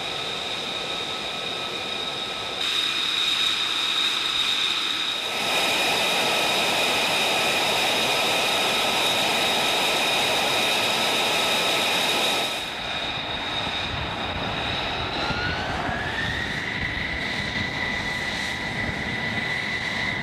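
F-35 fighter's single jet engine running on the ground, a steady high-pitched whine over a rushing noise that jumps in loudness several times. About fifteen seconds in, the whine glides up in pitch and then holds.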